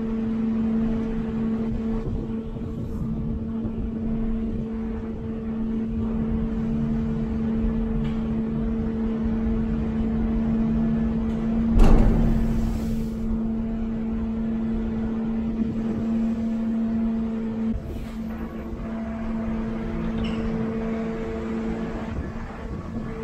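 Steady engine hum with a deep rumble on a ferry's enclosed car deck, with one sudden loud thump about twelve seconds in.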